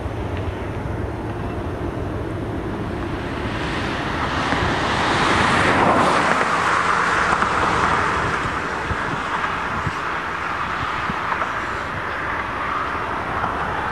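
A passing vehicle's noise swells to a peak about halfway through and then fades, over a steady low rumble.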